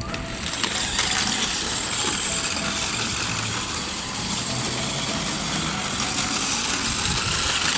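Toy remote-control ATV quad driving: its small battery-powered electric motor and drive run as a steady high whine over a continuous noisy rumble.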